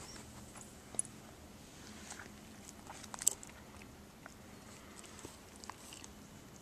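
A puppy chewing its food, with scattered sharp crunches; the loudest come about a second in and just past three seconds.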